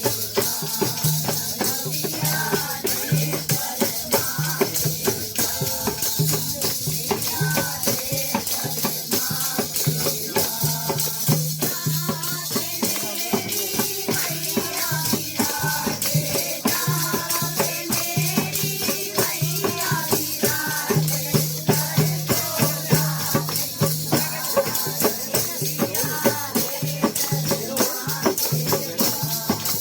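Kirtan devotional music: voices singing over a fast, steady rhythm of jingling rattle-like percussion and a pulsing drum.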